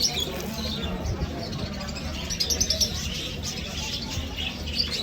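Many small birds chirping and twittering together in quick, overlapping calls, over a steady low hum.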